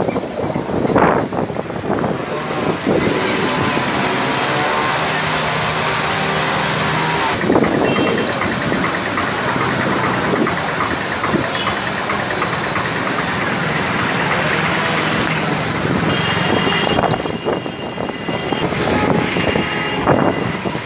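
Motor traffic on a flooded street: vehicle engines running under a steady, loud rush of noise, with a low engine hum passing about five to seven seconds in.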